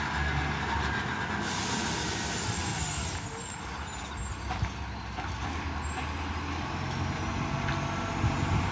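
Acco garbage truck's diesel engine running steadily with a leaking exhaust. About a second and a half in, a hiss of released air starts and fades over the next second or two.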